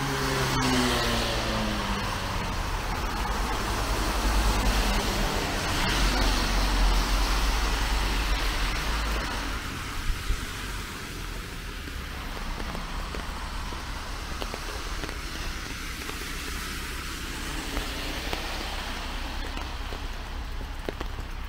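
Road traffic passing on a wet street, with tyres hissing on the rain-soaked road. An engine note falls in pitch during the first couple of seconds as a vehicle goes by, and a deep rumble of heavier traffic swells in the first half before the noise settles to a steadier hiss.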